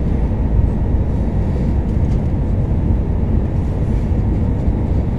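Steady cabin noise of an Airbus A321-231 on final approach, heard from a window seat over the wing: the IAE V2500 engines and the rush of air over the airframe, with a faint steady whine above it. No touchdown thump is heard yet.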